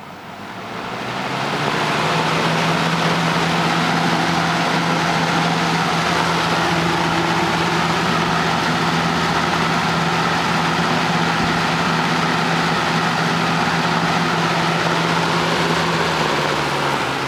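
1987 Robeson box fan with a McMillan motor running on high speed: the blade comes up to speed over the first couple of seconds, then a steady rush of air over a low motor hum. The sound drops slightly near the end as the fan slows.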